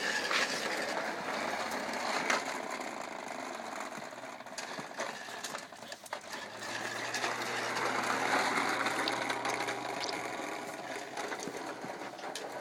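Small battery motor of a toy bubble lawn mower whirring steadily, getting a little louder for a few seconds about halfway through.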